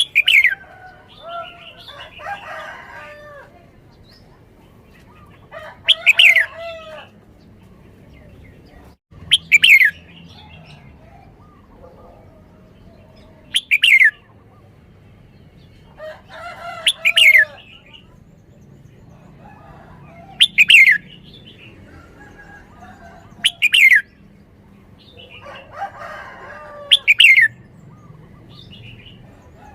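Red-whiskered bulbul singing: about eight short, loud phrases every three to four seconds, each ending in a falling whistle, with softer chattering notes between them.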